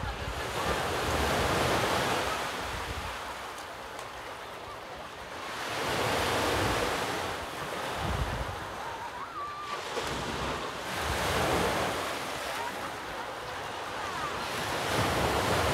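Sea waves breaking on the shore, the wash swelling and falling back about every five seconds, with wind rumbling on the microphone.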